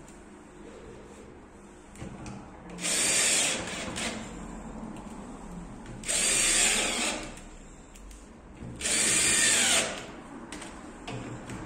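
Cordless drill-driver run in three short bursts of about a second each, a few seconds apart, working into the wood-laminate cabinet panel, with small clicks between the runs.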